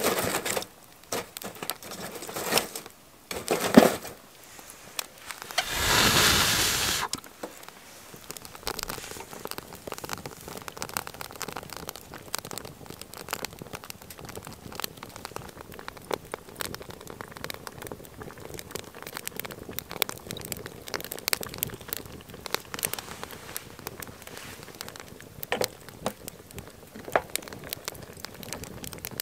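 Charcoal grill crackling and sizzling, with a steady fine crackle throughout. There are crinkly handling noises and a few sharp clicks in the first few seconds, and a loud burst of sizzling noise about six seconds in.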